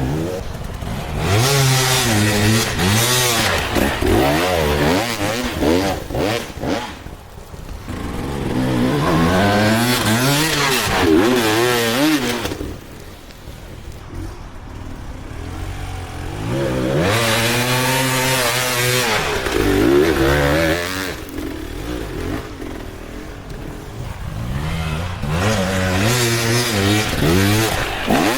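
Beta 200 two-stroke dirt bike engine revving up and down over and over, its pitch rising and falling with the throttle, easing off to a lower drone three times.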